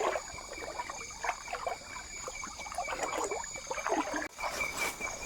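Shallow stream water trickling and splashing in irregular bursts, with insects trilling steadily above it.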